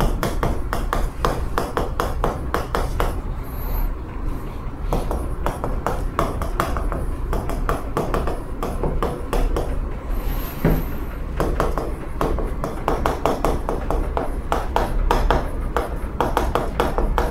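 Chalk writing on a chalkboard: a dense, rapid run of taps and scratches as the letters are stroked out.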